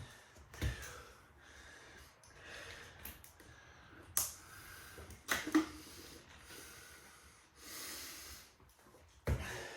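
A man breathing hard, recovering just after a set of burpees, with a few short knocks of movement around halfway and near the end.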